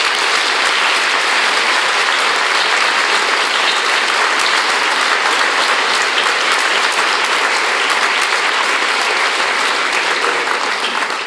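Audience applauding: dense, steady clapping from a large crowd that tails off near the end.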